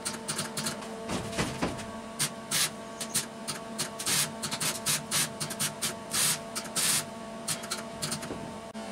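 Electric arc welding on a steel bracket clamped in a bench vise: irregular runs of crackling as short stitch and tack welds are laid, with a steady hum underneath.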